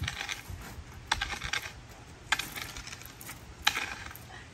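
Wooden stick knocking and scraping against an aluminum rowboat as it is worked like an oar: a sharp knock with a short clatter about every second and a quarter, four times.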